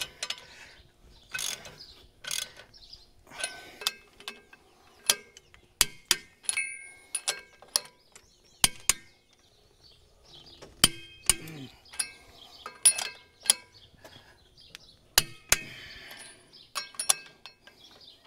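Hand ratchet wrench clicking in short irregular runs as lug nuts are run down to draw a tight-fitting wheel spacer onto a tractor's wheel hub, with sharp metallic clinks of socket and tools in between.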